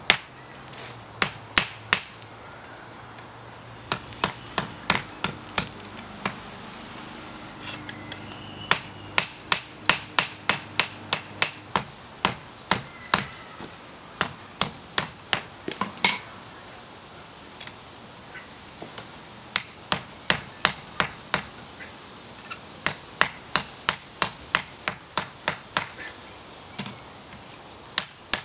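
Hand-hammer blows on red-hot coil-spring steel over a steel block anvil, each strike ringing brightly. The blows come in quick runs of several strikes with short pauses between, the longest pause a few seconds after the middle.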